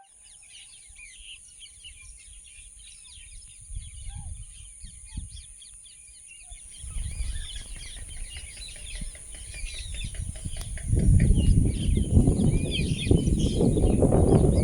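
Many birds chirping and calling at once in short, quickly repeated calls over a steady high-pitched tone. About seven seconds in a low rumbling noise comes in, and it gets much louder about eleven seconds in.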